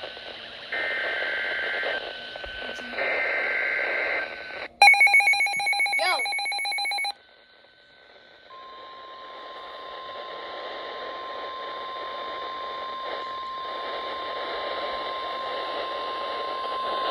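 Weather radio sounding an Emergency Alert System tornado warning: two short bursts of screeching two-tone data header, then a louder electronic alarm for about two seconds. After a brief pause comes the long steady single-pitch warning alert tone, lasting about nine seconds over radio static.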